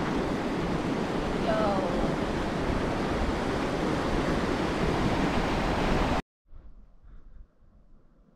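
Wind buffeting the camera microphone: a loud, uneven rushing with a heavy rumbling low end, cut off abruptly about six seconds in and followed by near-quiet.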